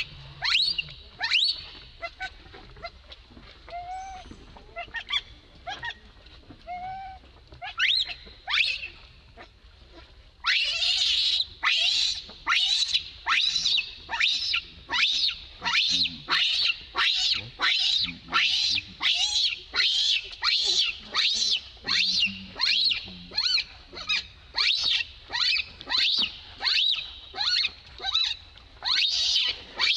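Baby macaque crying in distress: short shrill calls, each falling in pitch, scattered at first with a few softer squeaks between, then a steady run of about three calls every two seconds from about a third of the way in.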